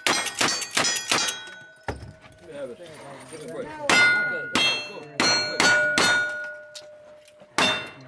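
A quick string of gunshots from a lever-action rifle, each crack followed by the ring of a hit steel plate target. After a short gap about two seconds in, a single-action revolver fires a slower string, the steel plates ringing after each hit.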